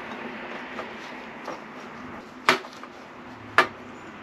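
Metal-on-metal clacks as Honda Beat rocker arms are fitted onto the rocker shaft in a steel parts tray: a few light taps, then two sharp knocks about a second apart.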